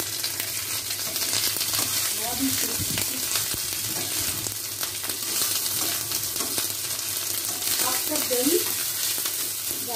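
Sliced onions and spices frying in mustard oil in a kadai, sizzling steadily, with the scrape and light clink of a metal spatula stirring them against the pan.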